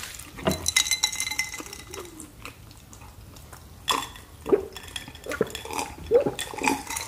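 Close-up eating and drinking sounds: chewing, wet mouth smacks and a few sharp clicks and clinks. There is a brief ringing clink about a second in.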